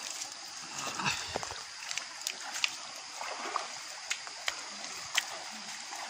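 Stream water running steadily over the rocks, with scattered sharp clicks and light splashes of barefoot steps on wet mud and stone.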